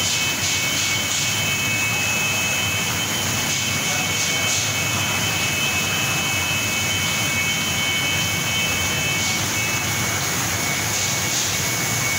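Steady rushing background noise of a large indoor hall, with a few faint, steady high-pitched tones that drop out near the end.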